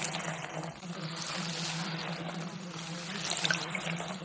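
Steady rushing, water-like noise over a low steady hum: the masking background track of a subliminal audio, with a few faint ticks near the end.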